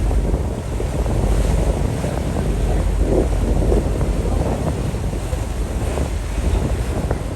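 Wind buffeting the microphone in uneven gusts, over the rush of water from the moving ferry.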